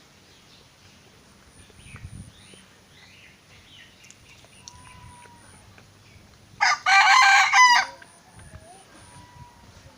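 A rooster crowing once, loud, about two-thirds of the way in, over faint chirps of small birds.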